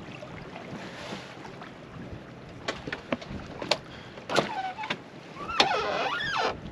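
Sharp clicks and knocks from a sailboat's cockpit gear being handled, then a wavering squeal near the end, over wind on the water.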